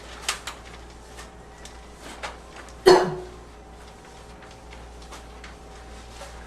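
A person's single loud, slightly wheezy barking cough about three seconds in, with two brief fainter throat sounds before it.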